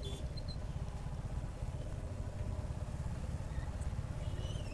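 Royal Enfield Hunter 350's single-cylinder engine running steadily as the motorcycle rides along, its firing pulses heard as a continuous low beat.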